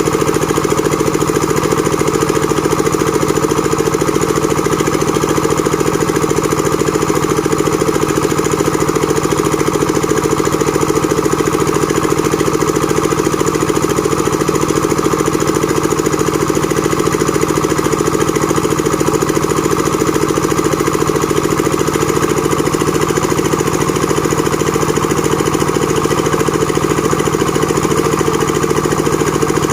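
Engine of a plank-making machine running steadily at an even speed and loudness.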